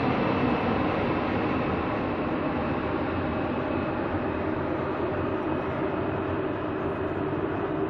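Four-engined Boeing 747 jetliner on final approach with gear down, its jet engines giving a steady rush of noise that slowly fades as the aircraft flies away.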